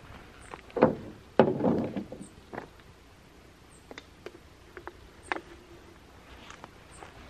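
Wood fire crackling in a small stainless steel Solo Stove camp stove, with scattered sharp pops. About a second in there are two loud knocks, the second with a rustle.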